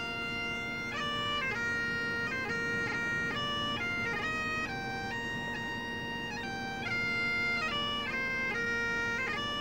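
Bagpipe music: a tune played on the chanter over steady, unbroken drones, the melody stepping through quick changes of note.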